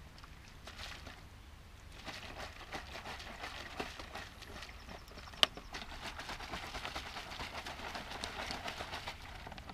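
Plastic PET bottle handled and squeezed in the hands: faint, irregular crackles and clicks of the plastic, with one sharp click about five and a half seconds in.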